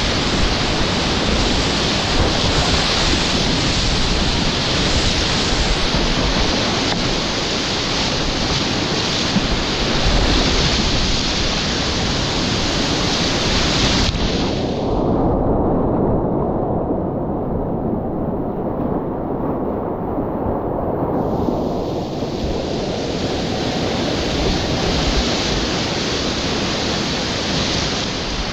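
Whitewater rapids rushing and churning around a kayak in a steady, loud roar of water. About halfway through the sound goes muffled, with the hiss gone, for some seven seconds, then clears again.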